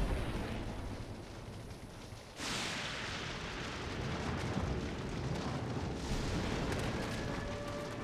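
Storm sound design for a tornado film trailer: a low rumble that fades a little, then about two and a half seconds in jumps suddenly into a steady rushing noise with crackle through it. Near the end a few faint held tones come in.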